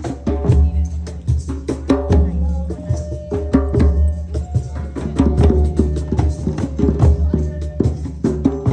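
Live drum-circle music: hand drums and small percussion playing a busy rhythm, with a melody over it.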